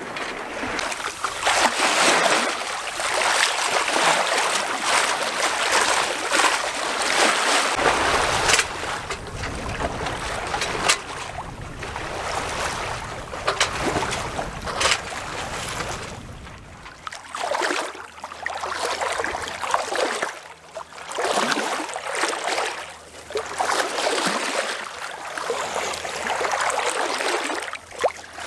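Water rushing and splashing along a sailing sloop's hull as it moves under sail, mixed with wind noise. It comes in uneven surges, most of them in the second half.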